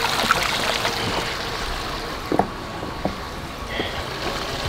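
Shallow creek water running over rocks, with a few short knocks of footsteps on wet stones.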